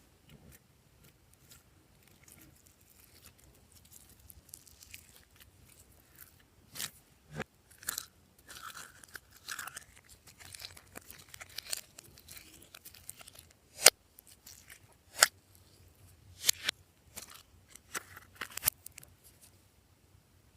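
Glossy slime being squeezed and pressed by hand: soft sticky crackles, then a run of sharp pops in the second half.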